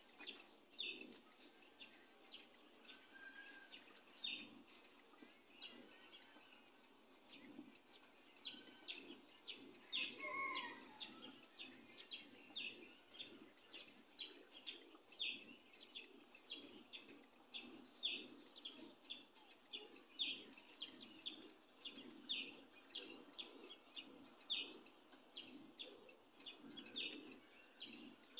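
Faint squeaks of a felt-tip marker on a whiteboard as words are written, a run of short strokes that comes several times a second from about eight seconds in.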